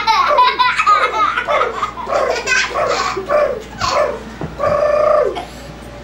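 Two young girls laughing hard as they are tickled, a quick run of short high-pitched laughs that dies down near the end.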